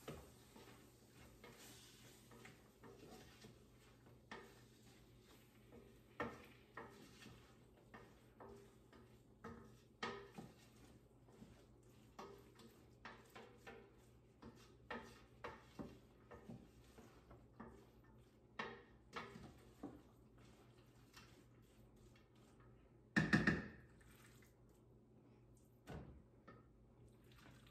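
Scattered light clinks and taps of a utensil on a stainless cooking pot, with one louder clatter lasting about half a second late on.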